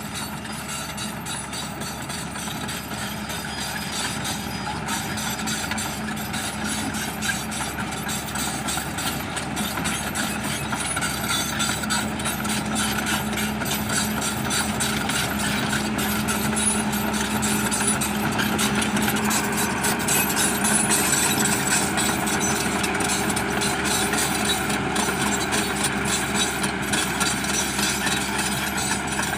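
Large excavator's diesel engine running steadily with a constant low hum and a dense rattle. It grows louder toward about two-thirds of the way through, then eases slightly near the end.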